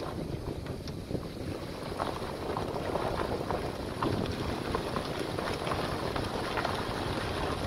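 A vehicle driving slowly along a gravel road: a steady low rumble of engine and tyres, with a scatter of small crackles from the stones and wind on the microphone.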